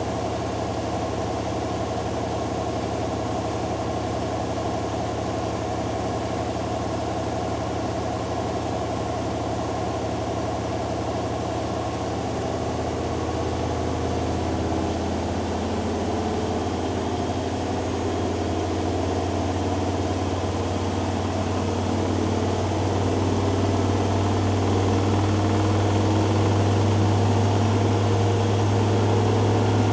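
Hoover Dynamic Next DXA610IW3 washing machine in its spin cycle: a steady motor-and-drum hum with a whooshing tumble above it. In the last third it grows louder, with a deeper, stronger hum, as the drum speeds up.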